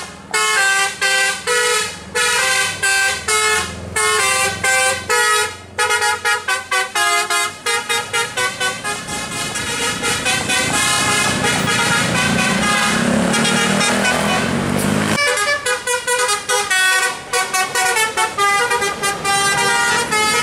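Indonesian bus "telolet basuri" multi-tone musical horns playing quick tunes of short, bright notes. Past the middle, the notes give way for a few seconds to heavier noise rising in pitch, like a bus engine revving on the climb, and then the horn tunes start again.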